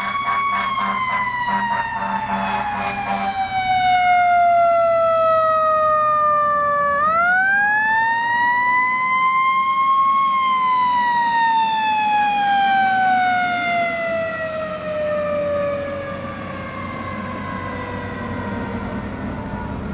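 Fire engine's mechanical siren winding down from a high steady pitch over several seconds, spun back up about seven seconds in, then winding slowly down again. A rapid pulsing sound runs underneath for the first few seconds, with the truck's engine running low throughout.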